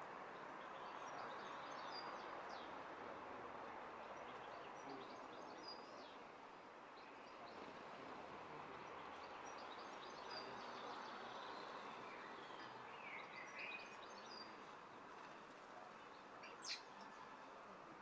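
Faint outdoor ambience: a steady low hiss of background noise with scattered small bird chirps and tweets, and one brief sharp high whistle near the end.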